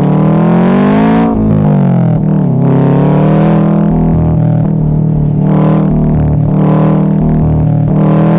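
Subaru WRX STi's turbocharged flat-four engine, its exhaust rumbling. The revs climb for about a second, then fall away quickly, and the engine then runs fairly steady at lower revs with small rises and dips in pitch.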